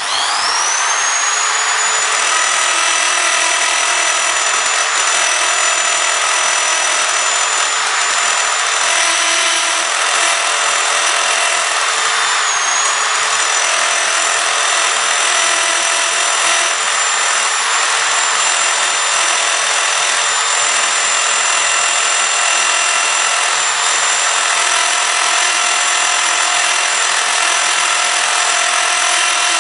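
Electric power drill running at speed with a steady whine as its twist bit grinds into a smartphone's glass screen. The motor spins up, rising in pitch, in the first second or two, then holds steady.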